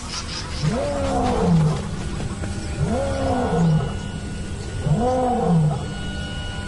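Male African lion roaring: three deep grunting calls about two seconds apart, each rising then falling in pitch, from the tail of a roaring bout. It is a territorial roar proclaiming possession.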